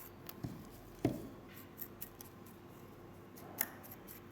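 Metal tweezers combing out cotton wick strands on an RTA coil: small, quick scratchy ticks, with a few light knocks, the loudest about a second in.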